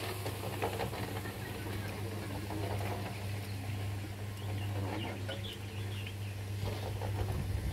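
A steady low hum, with scattered short high bird calls over it.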